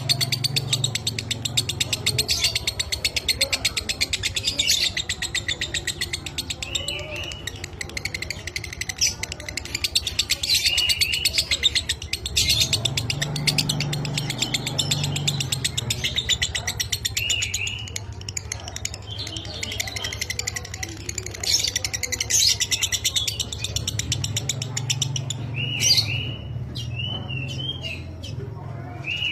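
Lovebird singing a long, very fast, unbroken chattering trill (the 'ngekek' song), with short chirps over it and a low hum beneath.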